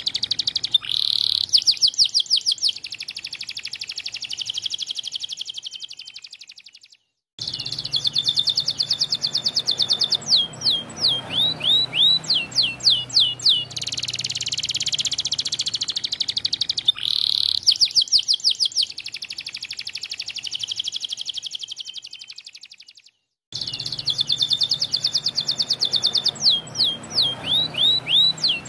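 White domestic canary singing a long, vigorous song of fast trills and rapid runs of repeated whistled notes, some sweeping down in pitch. The song breaks off into brief total silence twice.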